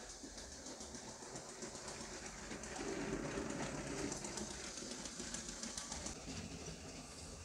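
Motorised LEGO steam locomotive running on plastic track: a steady electric motor whirr with fast, fine clicking from the wheels and motorised tender, growing louder as the engine passes close by about three seconds in.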